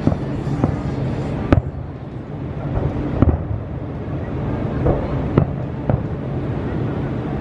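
Aerial fireworks shells bursting: half a dozen sharp bangs spread across a few seconds, the loudest about a second and a half in, over a steady low rumble.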